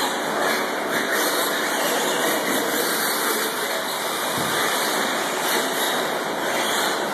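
Steady, even wash of noise from 4x4 short-course RC trucks racing on a clay track, with no single car or event standing out.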